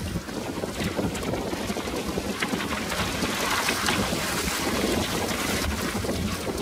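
Wind of about 25 knots buffeting the microphone over the rush and splash of choppy water, rising and falling in gusts.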